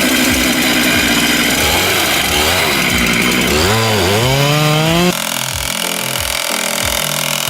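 Chainsaw engine running under load, its pitch dipping and rising as it is revved, cutting off abruptly about five seconds in. After it, background music with a steady beat.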